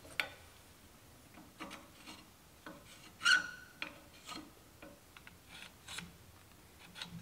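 Short, scattered scrapes and clicks of steel weldment pieces being handled and held together, with a marker scratching a cut line across the steel; the loudest scrape comes a little over three seconds in.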